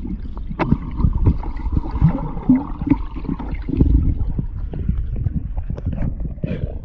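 Muffled underwater water noise of a dog diving and paddling in clear water, with gurgling and many scattered low knocks.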